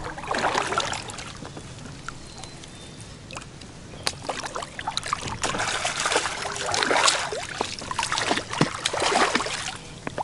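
A hooked bass thrashing and splashing at the water's surface beside a kayak, as irregular splashes and dribbling water with scattered sharp clicks.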